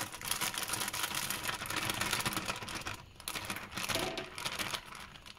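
Plastic fish bag crinkling as it is handled in the aquarium water: a dense, rapid crackle, strongest for the first three seconds, with a short break and a second burst about four seconds in before it fades.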